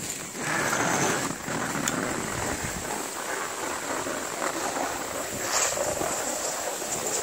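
Skis sliding and scraping over groomed snow during a downhill run, a steady rushing hiss with a few faint clicks.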